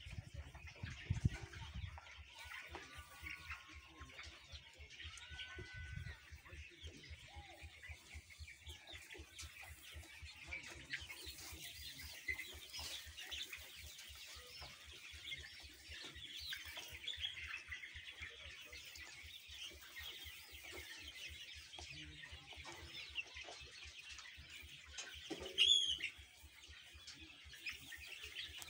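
A large flock of 40-day-old laying-hen pullets: a steady chorus of overlapping cheeps and clucks. There is a low thump about a second in, and one louder, higher call near the end.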